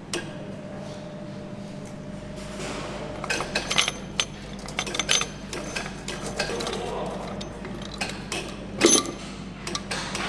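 Metallic clinks and clicks from engine parts being handled and fitted on an assembly line, over a steady factory hum, with one sharp knock about nine seconds in.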